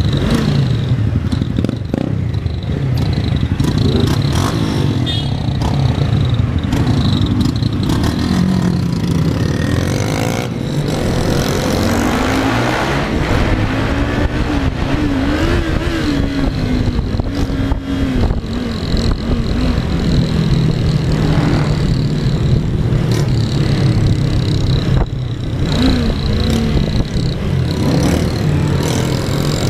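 Motorcycle engine running under way, its pitch rising and falling with the throttle and climbing to a higher rev about halfway through before dropping back, with wind noise over the microphone.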